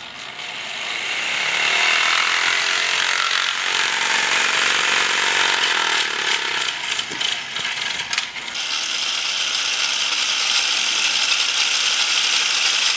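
A Lego XL motor driving a plastic Lego gear train that spins a wheel at high speed: a loud whirring with gear rattle, building up over the first couple of seconds. About eight seconds in it drops away briefly with a few clicks, then runs steady again. The single motor is not enough to get the wheel really fast.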